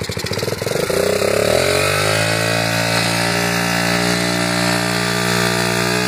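Small dirt bike engine running low at first, then revving up over the first second or so as the bike pulls away, then holding a steady speed.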